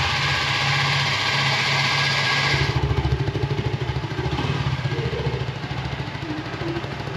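Yezdi Scrambler's 334 cc liquid-cooled single-cylinder engine idling just after being started, heard through its twin silencers. A hiss over the idle stops about two and a half seconds in, leaving a steady, evenly pulsing idle.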